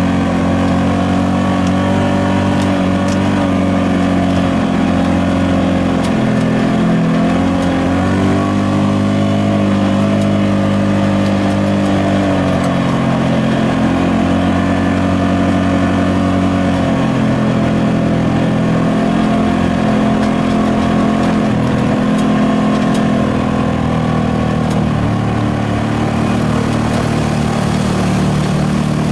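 Side-by-side UTV engine heard on board while driving, running steadily with the revs rising and falling several times as the throttle changes.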